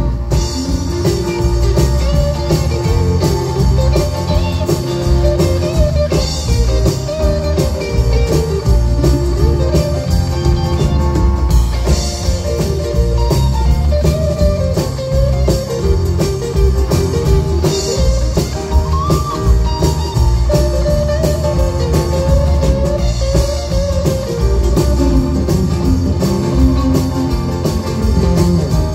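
Live country band playing an instrumental section of a song: a guitar lead line over a steady drum-kit beat, amplified through PA speakers.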